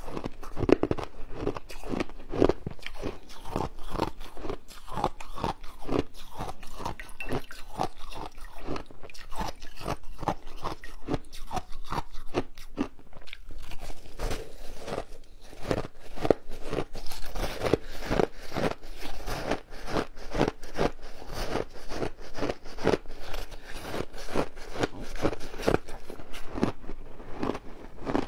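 Close-miked biting and chewing of frozen shaved ice: a continuous run of crisp crunches, several a second.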